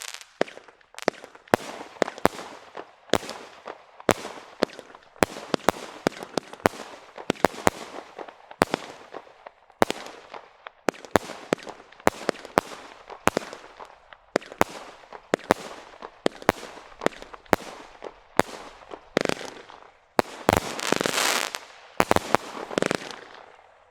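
Standard Fireworks multi-shot firework cake firing a rapid barrage of sharp bangs, about two to three a second, each followed by a brief fizz. Near the end come two bursts of dense crackling.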